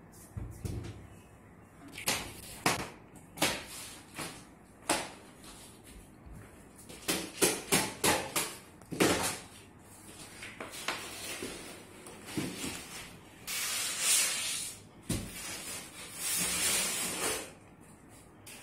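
Flat-pack engineered-wood bed panels and their large cardboard carton being handled on a hard floor: a run of sharp knocks and thuds as boards are moved and the box is set down, then longer scraping and rustling of cardboard and packing sheets as the carton is opened.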